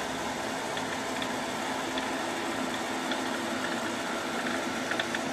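Hobart model 802 80-quart mixer running with a steady hum, its clutch in stop so the agitator is not turning, while the bowl lift raises the bowl support. A few light clicks near the end.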